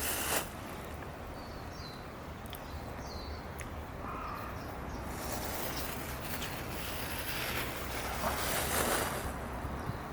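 Outdoor ambience: a steady background rush with a few faint, short high chirps early on and two swells of louder rushing noise, the second about eight to nine seconds in.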